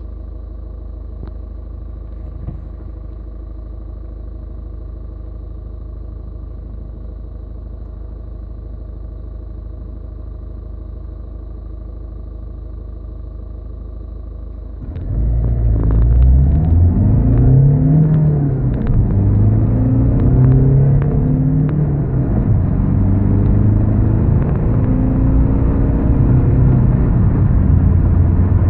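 VW Polo 6R 1.6 TDI four-cylinder diesel, remapped and running without its particulate filter, idling steadily. About halfway through it is floored in a full-throttle 0-100 km/h run and gets much louder, the engine note rising and dropping back several times at the gear changes.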